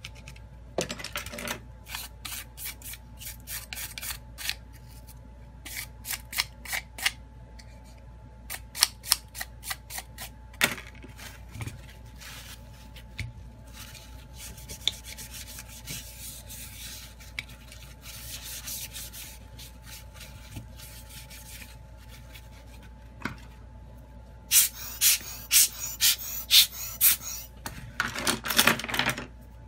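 A metal-bladed pry tool scraping along the edge of a phone's metal midframe in short, sharp strokes, with softer rubbing in between. Near the end comes a run of quick, louder scraping strokes.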